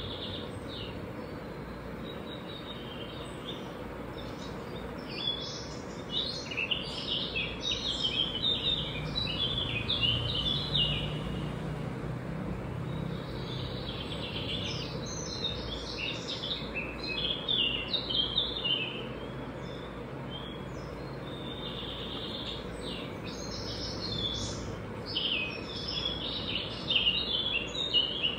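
Small birds chirping and twittering in three bouts of several seconds each, over a steady background hiss.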